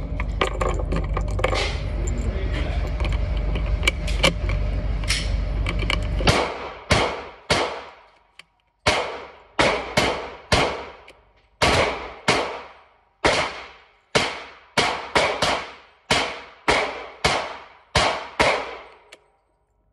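Small clicks of cartridges being pressed into a pistol magazine over a low rumble. About six seconds in, a long string of gunshots starts, about twenty in all at roughly two a second, each ringing off in an indoor range.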